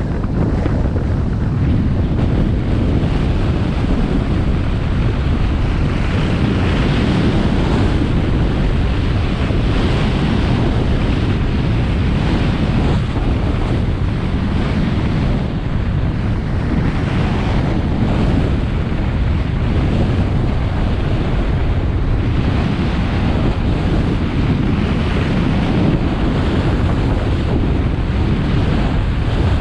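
Loud, steady wind buffeting on the microphone of a camera carried fast down a groomed ski slope, with the hiss of sliding on snow rising and falling every few seconds.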